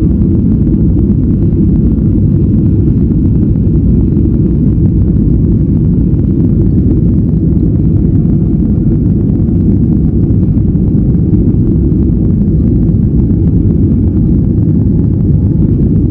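Boeing 737 jet engines at takeoff power, a loud, steady, muffled deep rumble with almost nothing in the high end.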